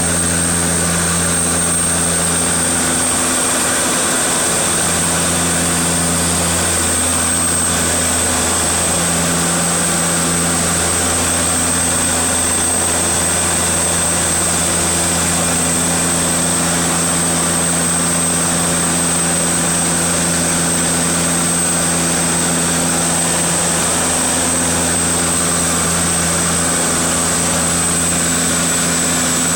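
Seaplane's propeller engines heard inside the cockpit during the landing approach: a steady loud drone over a thin high whine that drifts slightly lower.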